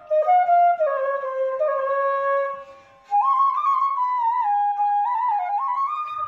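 Background music: a solo flute playing a slow melody of held notes that slide between pitches, breaking off for a moment about halfway through before continuing higher.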